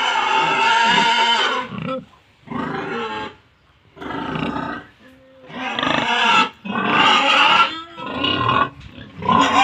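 Pig squealing loudly over and over, in a run of about six or seven high calls, each lasting up to about a second and a half with short breaks between them.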